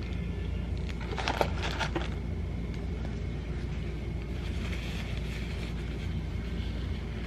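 Steady low rumble, with a short crackling rustle a second in that lasts about a second.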